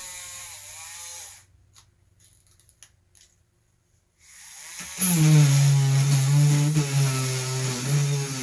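Dremel rotary tool drilling dry into a stone: its whine stops about a second and a half in, a few faint clicks follow, then the tool spins back up and grinds loudly against the stone from about five seconds in.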